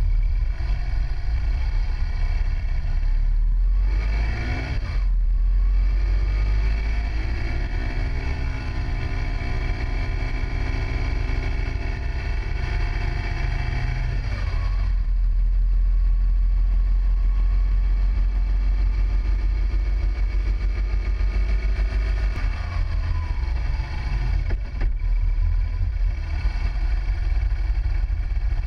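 Motorcycle engine running under a rider's throttle, its pitch falling and rising through gear changes and bends, over a heavy low rumble of wind on the microphone. The sound changes abruptly about halfway through, where a new stretch of riding begins.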